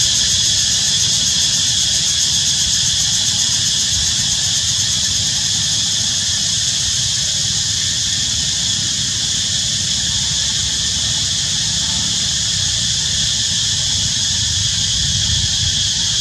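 Steady high-pitched drone of a cicada chorus in forest, over a low steady rumble.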